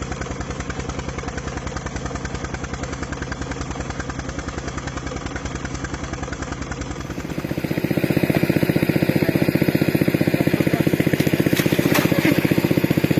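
Engine-driven water pump running steadily with a rapid, even chug. About seven seconds in, it becomes markedly louder.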